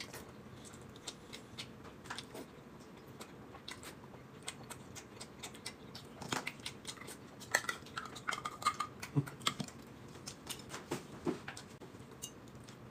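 Chopsticks and tableware clicking and knocking lightly against plates, with faint chewing, during a dumpling meal at a table. The clicks are scattered and quiet, and come most often in the middle of the stretch.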